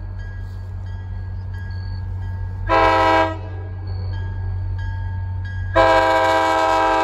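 Approaching train's multi-note air horn sounding for a grade crossing: a short blast about three seconds in, then a long blast starting near the end, over the steady low rumble of the oncoming train. Faint ringing of the crossing's warning bell can be heard between the blasts.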